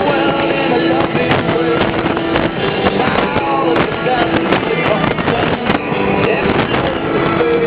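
Music playing over the steady engine and wind noise of a vehicle travelling at highway speed.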